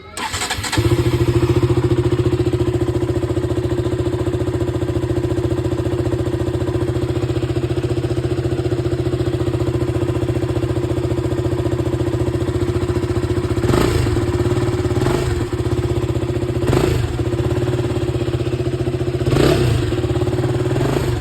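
KTM RC 200 single-cylinder engine on its stock exhaust, starting up and settling into a steady idle. Four short throttle blips come in the second half.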